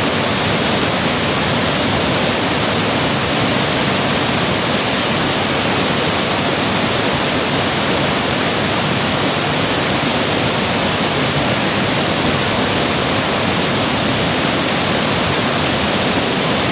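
River water rushing, a loud steady noise that does not change.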